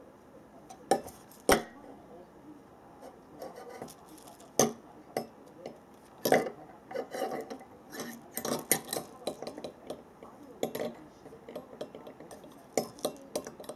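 Hollow plastic cage-ball cat toy with a loose ball inside, swung on its cord and knocking against a wooden chair, giving irregular clattering clicks and knocks. A few louder knocks come about a second in, at one and a half seconds, and around four and a half and six seconds.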